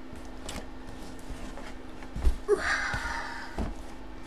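Cardboard product boxes being handled and stacked: a few light knocks, a thump about two seconds in, then a short scraping slide of cardboard on cardboard. A steady low hum runs underneath.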